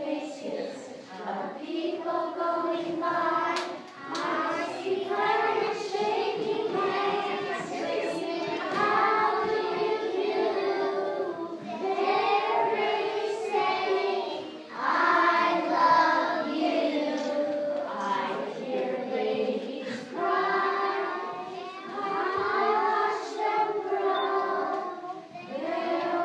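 A group of young children singing together in unison, in phrases with held notes and short breaks between lines.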